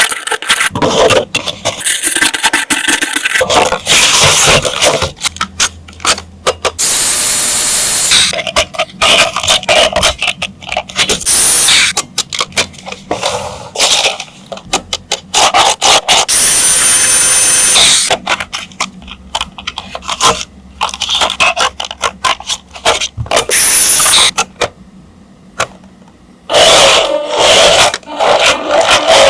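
Toy packaging and plastic parts being handled: irregular scraping, clicking and knocking, with several bursts of hissy rustling about a second long.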